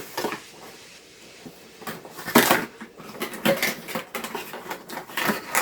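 A cloth mousepad with a rubber base being unrolled and laid out by hand: rustling with several short, sharp knocks, mostly in the second half.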